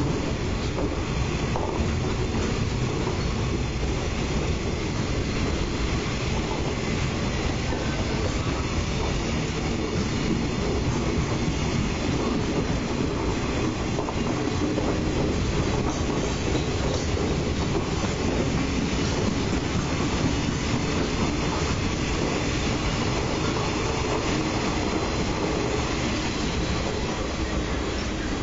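Freight train of loaded container flatcars passing at speed: a steady, dense rolling noise of steel wheels on the rails. It eases a little near the end as the last wagons clear.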